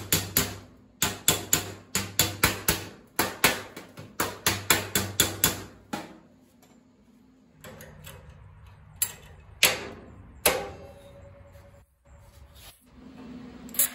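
Hammer-and-dolly work on a welded steel body panel seam: quick runs of sharp metal-on-metal hammer blows, several a second, for about six seconds, then a pause with a few single knocks.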